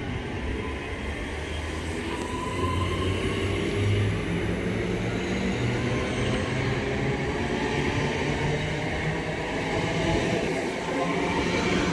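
Two coupled Class 323 electric multiple units drawing away along the platform. Their traction motors give a hum that rises in pitch as the train gathers speed, over a steady rumble of wheels on the rails.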